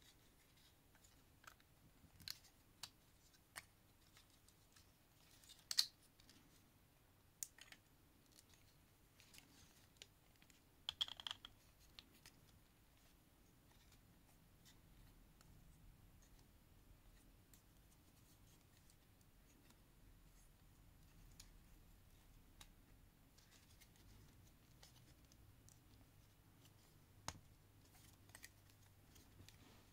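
Scattered small clicks and scrapes of plastic parts as a Transformers Legacy Skullgrin figure is handled and transformed, its joints and panels clicking into place; the loudest clicks come about six and eleven seconds in, with near silence between them.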